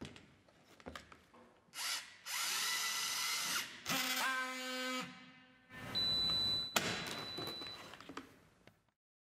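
Orgapack OR-T battery strapping tool working a plastic strap in soft mode, with reduced tension force. A few clicks as the strap is set in, then the motor runs in three spells of a second or two each. The first rises in pitch and then holds steady as the strap is tensioned. A sharp click follows about seven seconds in, then some handling clatter.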